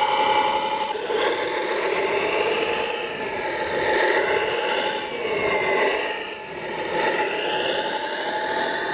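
Scale RC Jeep Wrangler JK crawler driving through loose sand, its motor sound rising and falling in pitch with the throttle over a steady high whine.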